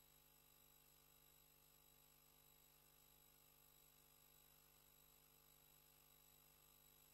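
Near silence: a faint, steady electrical hum and hiss with no other sound.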